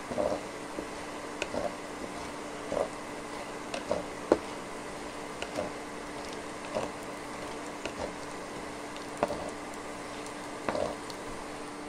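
A spatula scraping and knocking in a nonstick frying pan while chopped garlic is stirred: short, irregular scrapes about once a second, over a steady hum from the induction cooktop.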